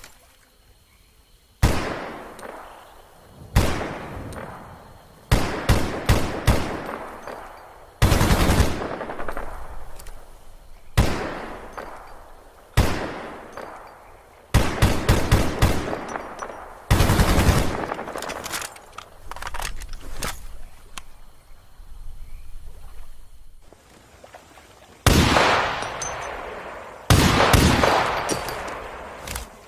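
AK-47 assault rifle (7.62×39mm) firing bursts of automatic fire, each a quick string of shots followed by a long echoing tail. About a dozen bursts come a couple of seconds apart, with a longer pause before the last few.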